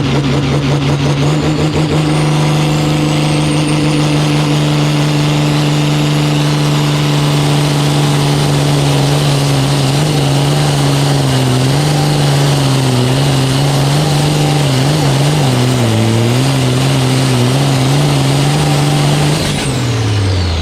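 Pulling vehicle's engine run at high revs under load, held steady, then wavering in pitch, and dropping off sharply near the end as it comes off the throttle.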